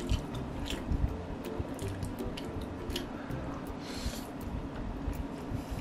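Close-miked mukbang eating sounds: chewing and slurping a mouthful of stretchy melted cheese pizza, with many small wet clicks from the mouth. There is a longer wet slurp about four seconds in.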